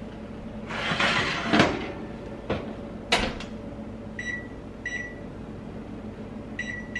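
Oven rack with a foil-lined baking tray slid back in and the oven door shut, a scrape followed by a knock and a couple of clicks, then three short electronic beeps as keys on the oven's control panel are pressed.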